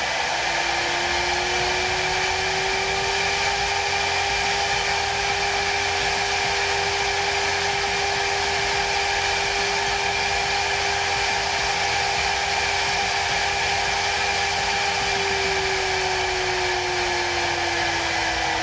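CNC router spindle driven by a Huanyang VFD, whining at high speed. Its pitch rises over the first few seconds as the drive ramps up to 400 Hz (24,000 RPM), holds steady, then falls over the last few seconds as the spindle slows. A steady hiss runs under the whine.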